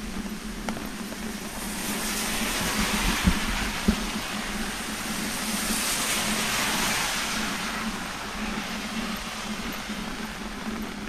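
A car passing on a wet road, its tyres hissing on the water: the hiss swells over a couple of seconds, peaks about halfway through, then fades away. Two short, dull thumps come about three to four seconds in.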